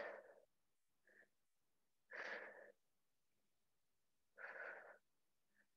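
A woman's paced, forceful breaths while holding a side plank, the breaths counted as the hold's reps: three strong breaths about two seconds apart, each followed by a quick faint intake.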